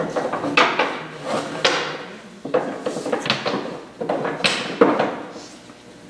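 Several sharp knocks and clatters at uneven spacing, about eight in all.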